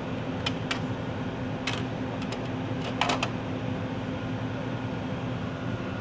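Steady mechanical fan hum with a few light clicks and knocks of a hand on the white plastic sample racks of a CEM Explorer 48 autosampler. The loudest knocks come in a quick cluster a little after three seconds in.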